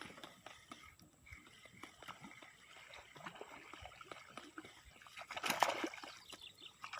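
Water sloshing and gurgling with small irregular splashes and ticks, and a louder splash about five and a half seconds in.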